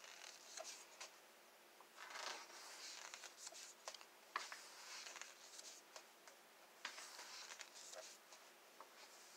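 Faint rustles and soft flicks of glossy book pages being turned by hand, a few times over.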